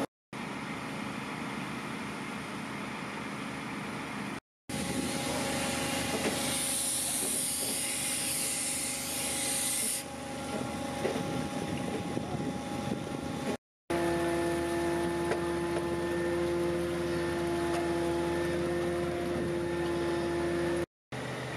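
Fire engines running steadily at a fire scene, their diesel engines and pumps giving a constant hum with steady tones. A loud high hiss joins in for a few seconds in the middle. The sound drops out briefly three times.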